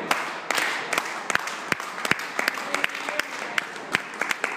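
Wrestling crowd applauding, with sharp hand claps close by, a few a second, over a general hubbub of clapping and voices.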